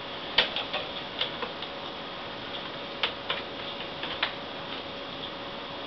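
Irregular light clicks and taps of a small screwdriver and tiny screws against a laptop's screen frame as the screws are fiddled into place.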